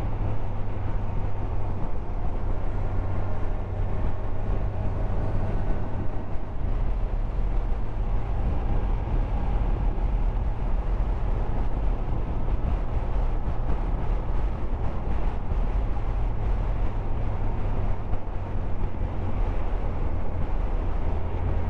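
Onboard motorcycle ride at a steady road speed: a constant low engine drone under dense wind and road rush.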